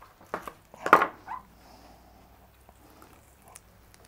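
Knife and lamb chops knocking on a wooden cutting board as the chops are cut apart and handled: a few sharp knocks in the first second and a half, the loudest about a second in.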